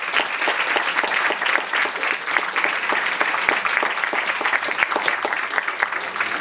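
Audience applauding, many hands clapping in a steady, dense patter to welcome a speaker.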